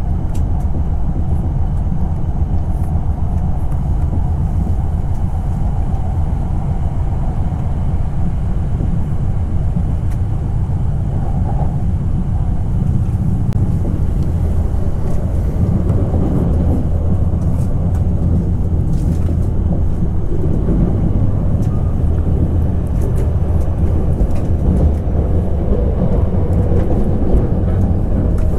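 Hokkaido Shinkansen train running at speed, heard from inside the passenger cabin: a steady low rumble.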